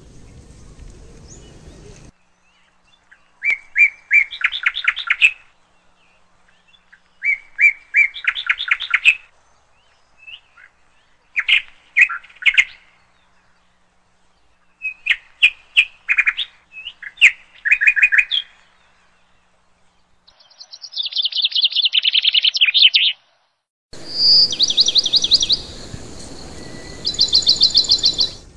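A bird singing: short phrases of quick, repeated chirps, one every few seconds. A steady background hiss drops out about two seconds in and comes back near the end.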